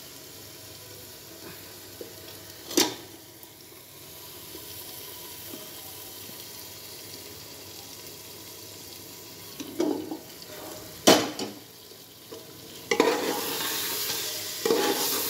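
Metal spatula clinking and scraping against the wok and the pressure cooker as the leftover cooking oil is scraped in over a low sizzle: one sharp clink about three seconds in, two more around ten seconds. In the last couple of seconds the masala potatoes sizzle louder as they are stirred in the hot pressure cooker.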